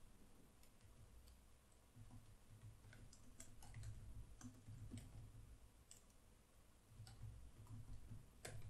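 Faint computer keyboard typing: irregular keystroke clicks starting about two seconds in, over a low background hum.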